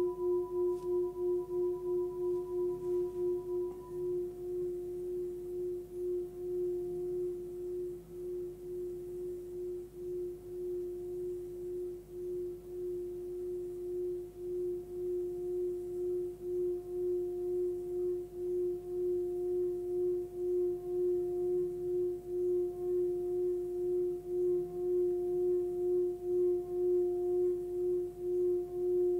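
A 13.5 cm hand-forged singing bowl is sung by rubbing its rim with a suede-covered wooden stick. It gives one steady pure hum at about 357 Hz (the note F) with a fainter overtone above, pulsing in a slow wobble. A higher ringing partial fades out about four seconds in, and the tone sags slightly before building again.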